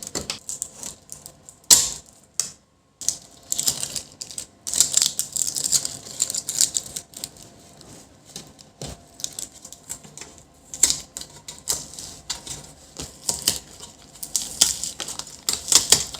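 Hand work taking apart an Asus VP278H monitor: irregular clicks, taps and scraping as its plastic casing and metal parts are handled, pried and unscrewed.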